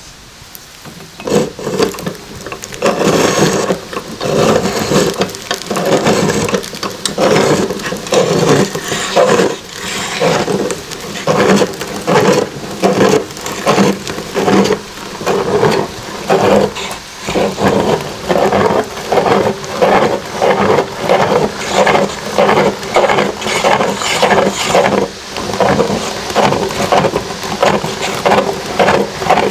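Hand-cranked meat grinder being turned as it grinds food, with loud crunching and squelching. From about halfway, the crunches come in a regular rhythm a little over once a second.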